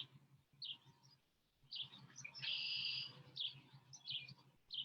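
Songbirds chirping: short high, falling chirps roughly once a second, with a longer buzzy trill about halfway through.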